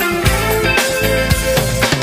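Music with a steady beat and held melody notes.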